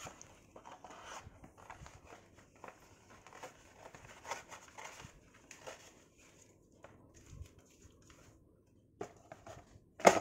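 Lego set box and packaging being handled and opened: irregular rustling, scraping and small clicks, with one sharper, louder crack near the end.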